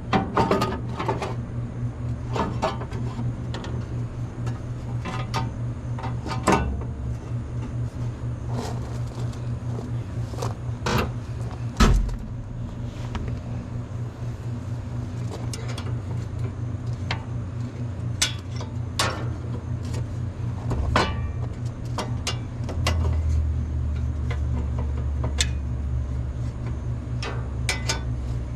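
A steady low engine hum, with scattered sharp clicks and clanks of hand work on the hay baler; the hum grows louder for the last few seconds.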